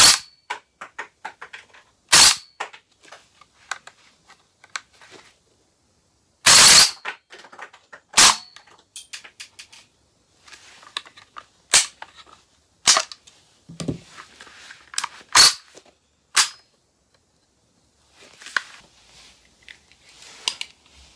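Gas blowback airsoft M14 firing single shots: about eight sharp pops at irregular gaps, with the longest near the middle. Faint mechanical clicks of the rifle being handled fall between the shots.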